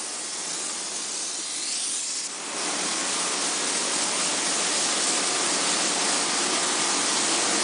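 Spray foam gun spraying two-component polyurethane foam: a steady hiss that gets louder about two seconds in.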